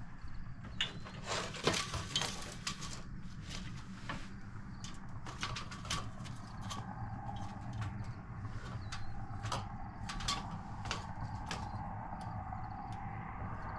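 Horizontal window-blind slats clicking and rattling as fingers push them apart. The clicks and taps are irregular, packed closely in the first few seconds and more scattered after that.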